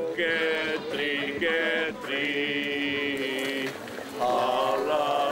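Chant-like singing in long held, wavering notes, phrase after phrase, with a brief pause about four seconds in.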